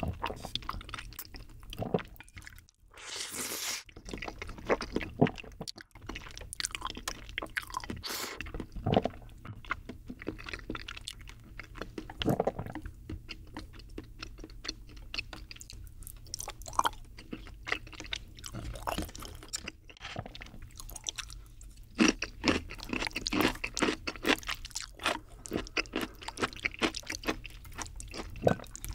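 Close-miked eating sounds of creamy bacon pasta: noodles slurped from a spoon, then wet chewing with many small mouth clicks and smacks.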